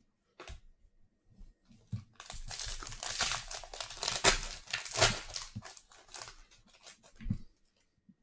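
A foil trading-card pack wrapper being torn open and crinkled, with dense crackling from about two to six seconds in and scattered rustles after.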